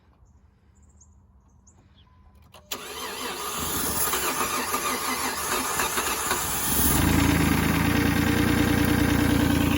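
A car engine, fed starting fluid through the throttle body, is cranked by the starter about three seconds in, catches, and settles into running near the end. It runs on the starting fluid because it is starved of fuel, which the owner first takes for a fuel pump fault; the tank turned out to be empty.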